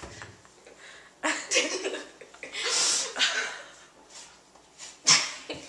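Girls laughing in breathy, stifled bursts, with one longer breathy burst of laughter about three seconds in and a short, sharp louder burst near the end.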